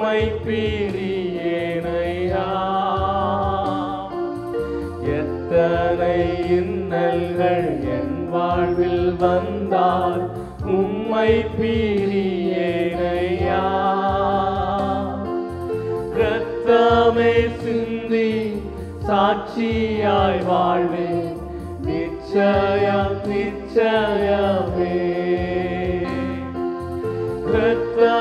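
Christian worship song: singing over continuous instrumental accompaniment.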